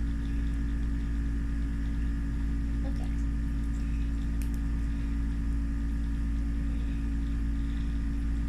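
A steady low hum throughout, with a few faint sticky clicks of homemade slime being mixed by hand about three and four and a half seconds in.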